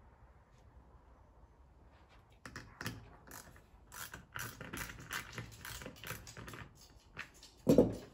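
Small hand ratchet clicking in quick runs, starting about two and a half seconds in, as bolts are tightened to fasten the mounting brackets onto a plastic hand guard. A single loud thump comes near the end.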